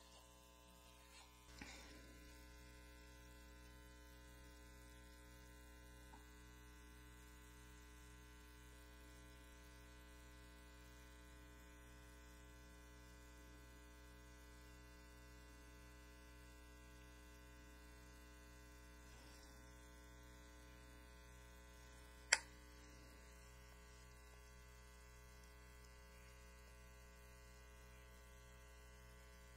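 Near silence with a steady electrical mains hum and its overtones, and a single sharp click about two-thirds of the way through.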